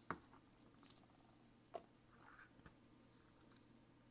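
Faint clicks and scrapes of a paintbrush mixing water and PVA glue in a plastic bottle cap, clustered in the first two seconds.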